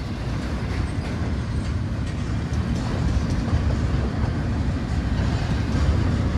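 Freight train of intermodal container well cars rolling past: a steady low rumble of steel wheels on rail.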